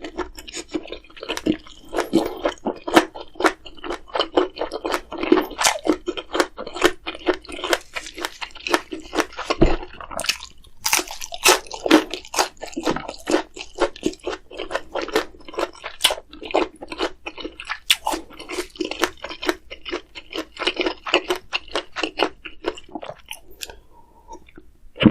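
Close-miked chewing and biting of food: a dense run of quick, wet clicks of the mouth, with a short pause near the middle and a sharper knock at the very end.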